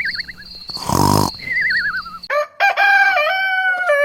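A rooster-like crow about a second in, between warbling whistled bird calls; past halfway a stepped electronic tone sequence begins, like a short jingle.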